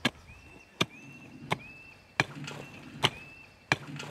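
A hand mattock chopping into stony garden soil: six sharp strikes, one about every three quarters of a second.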